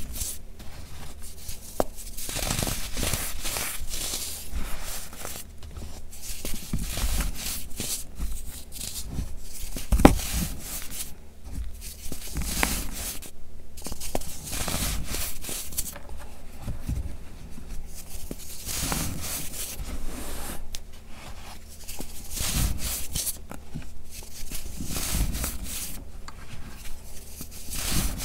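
Hands squeezing and crumbling gritty baking soda, loose powder and pressed blocks, in a run of soft crunching swells every second or two. One sharp crack about ten seconds in.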